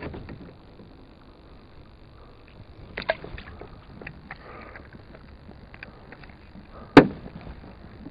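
Knocks of fishing gear against a kayak hull: a few light knocks about three seconds in and one sharp, much louder knock about seven seconds in.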